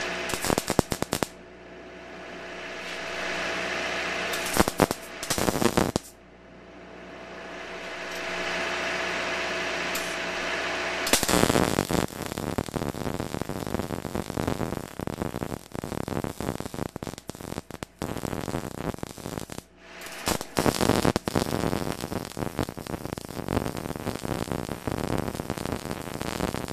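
MIG welder arc crackling as steel strap is welded into the end of steel tubing: short tack welds in the first few seconds, then long continuous beads from about eleven seconds in, with a brief stop near twenty seconds. Between the early tacks a steady hum slowly grows louder.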